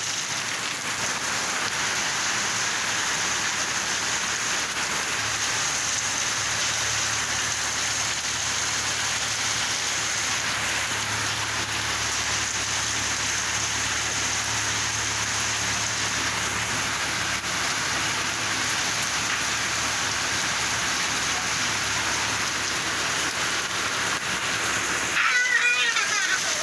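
Steady monsoon rain falling and pattering on surfaces. About a second before the end, a brief high-pitched voice cuts through.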